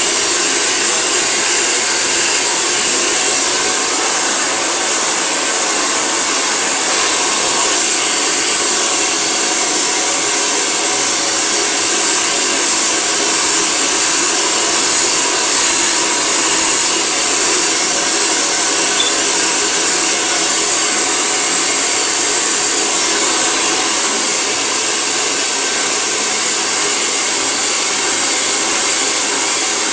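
Handheld hair dryer blowing steadily on wet hair, an unbroken loud rush of air with a high whine from the motor.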